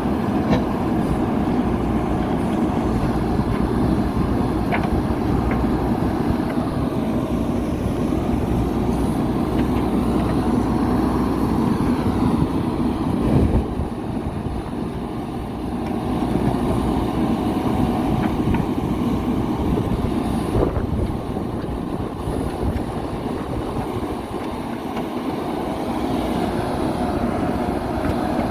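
JCB backhoe loader's diesel engine running steadily, its level dipping and rising again twice as the load changes. A few short knocks stand out, the loudest about thirteen seconds in.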